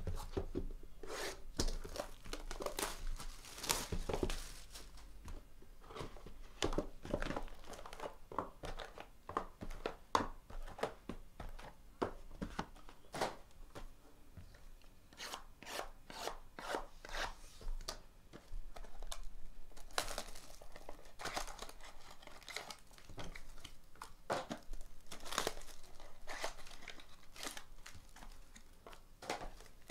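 Plastic shrink wrap being torn and crinkled off a 2019 Bowman Sterling baseball card box and its mini-boxes. It comes as irregular crackles and tearing, busiest in the first few seconds and again about twenty seconds in, with cardboard boxes being handled.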